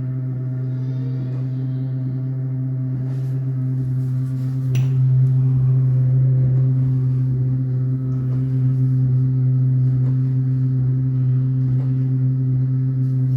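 Bosch dishwasher making an odd, loud, steady hum: one low droning tone with overtones, a little louder from about five seconds in, with a few faint clicks over it. This is the strange noise the owner is documenting.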